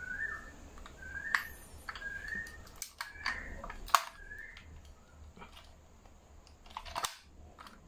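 Light clicks and taps of a 1:24 diecast BMW i8 model car being handled and turned over in the hands. A short rising chirp repeats about once a second in the first half and then stops.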